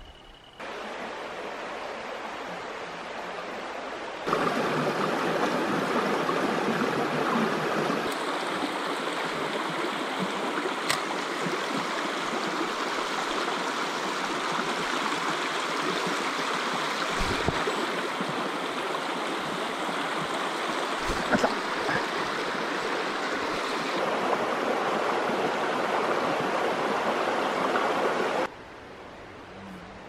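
Water of a shallow mountain stream rushing and gurgling over rocks: a steady noise that steps louder or softer a few times. A few brief clicks come in the middle.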